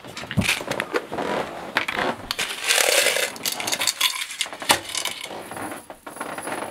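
Hand-made chainmail of small metal wire rings rattling and clinking as it is pulled out of a tin can and handled, the clatter densest about halfway through.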